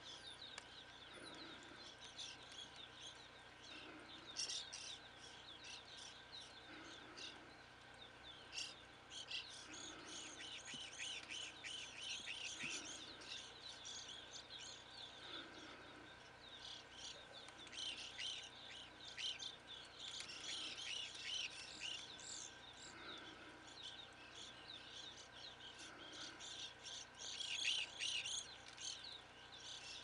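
A flock of evening grosbeaks calling: many short, overlapping chirps that come thicker in the second half.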